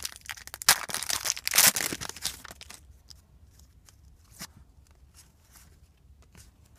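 Foil wrapper of a Topps football card pack being torn open and crinkled, loudly for the first three seconds or so. After that come softer, scattered clicks and rustles.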